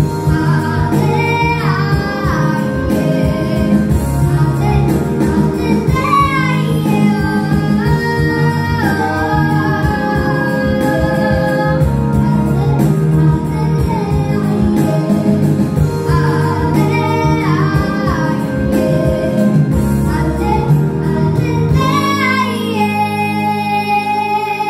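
A young girl singing a Polish Christmas carol (kolęda) solo over instrumental accompaniment with no visible players, most likely a backing track. The deep bass of the accompaniment drops out near the end while her voice carries on.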